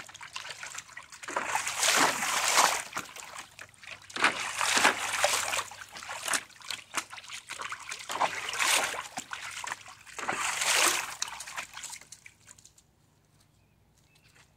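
Dog splashing and pawing at the water of a small dog pool in repeated bursts, falling quiet near the end, as she digs at a bone sunk on the bottom.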